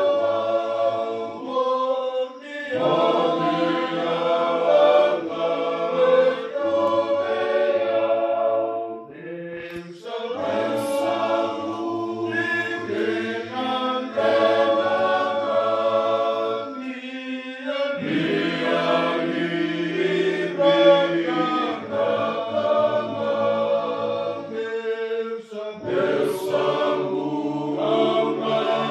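Group of men singing unaccompanied in several-part harmony, in long held phrases with short breaks between them.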